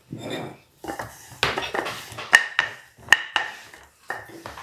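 Rolling pin working a sheet of bread dough on a metal sheet, giving a series of sharp clacks, some with a brief metallic ring, between softer rolling rustle.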